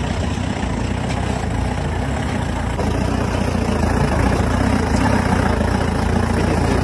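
A 4x4 jeep's engine running steadily as it climbs a rocky off-road track, getting a little louder about three seconds in.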